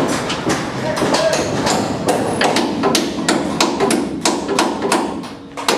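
Hammer blows on aluminium formwork panels overhead, repeated rapidly at about three strikes a second.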